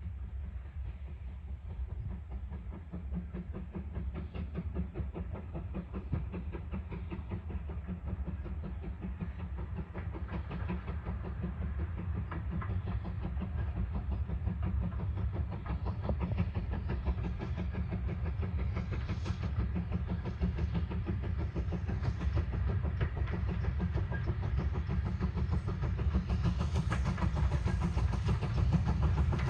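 A train approaching, its low rumble and clatter growing steadily louder.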